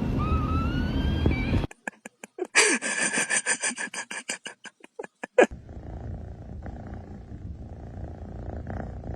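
Cat sounds across short clips: a fast run of sharp, pitched pulses for a few seconds, then a quieter low, steady rumble.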